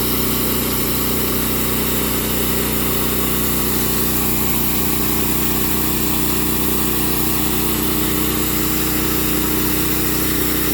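Sawmill running steadily, a constant mechanical hum that holds the same pitch and level throughout.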